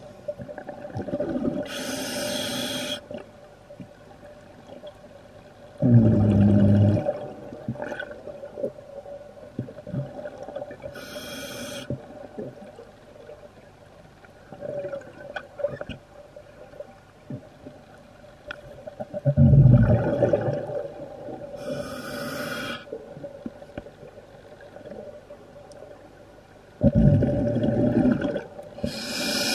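Scuba regulator breathing underwater: a short hiss on each inhale and a low burble of exhaled bubbles, a few slow breaths in turn, over a faint steady hum.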